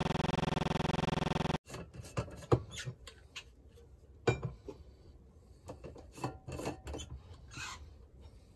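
A steady buzzing drone cuts off suddenly about one and a half seconds in. Then come scattered clicks, knocks and rubbing scrapes of travel mugs being set down on a kitchen counter and their screw lids twisted, with the loudest knock about four seconds in.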